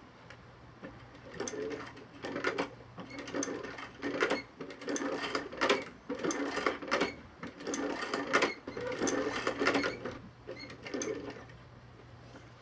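Stitching through a leather boot patch: short, irregular bursts about once a second that start about a second in and stop shortly before the end, over a faint steady low hum.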